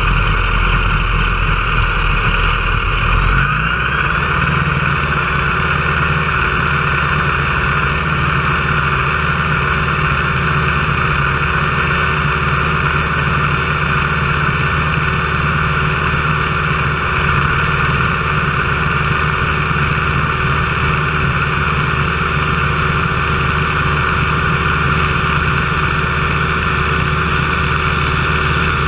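Nanchang CJ-6A's nine-cylinder radial engine and propeller running steadily, heard inside the cockpit while the aircraft rolls along the ground. The engine note shifts about three and a half seconds in, then holds steady.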